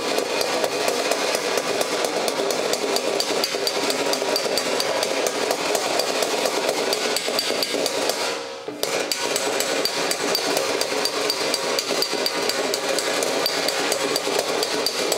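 Body hammer tapping a dented sheet-metal panel against a hand-held dolly in rapid, steady metallic taps, with one short break about halfway through. This is hammer-and-dolly work, knocking down the high spots and raising the low spots of the dents.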